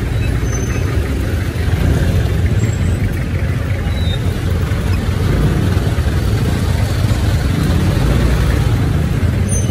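Steady low rumble of vehicle engines and road traffic in a traffic jam.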